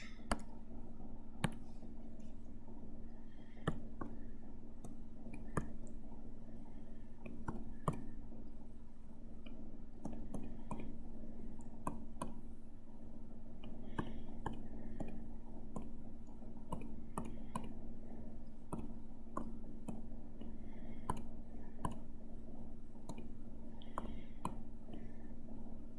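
Irregular sharp clicks of computer controls, about one a second, over a steady low hum.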